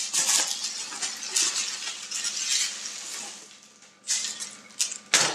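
Plastic packaging wrap and cardboard inserts rustling and crinkling as a camera is lifted out of its box, with short, sharper crinkles near the end.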